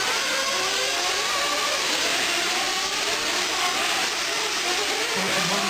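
Several 1/8-scale nitro truggies' small two-stroke glow engines racing around the track together, their high buzzing whines overlapping and rising and falling as they rev and ease off.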